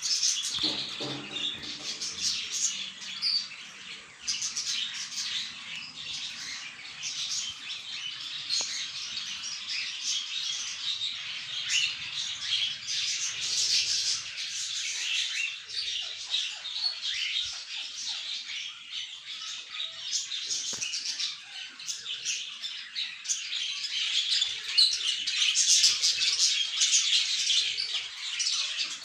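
A flock of pet budgerigars and cockatiels chattering and chirping non-stop, many birds calling over one another, with occasional sharper squawks.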